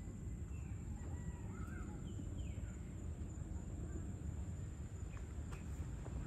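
Outdoor ambience: a steady low rumble with faint bird chirps and short calls, mostly in the first half.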